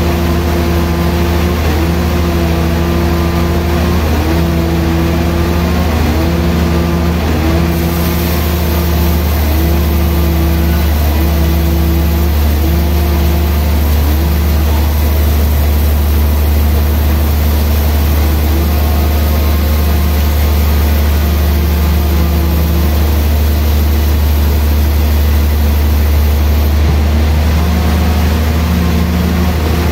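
Large band sawmill running and cutting through a thick hardwood slab: a steady low motor hum, with a pitched tone that comes and goes about once a second through the first half and again near the end.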